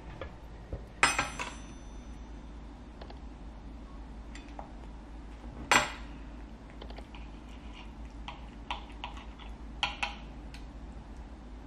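Knife and fork clinking and scraping on a ceramic plate, in scattered sharp clicks; the loudest, with a brief ringing, come about a second in and just before six seconds in.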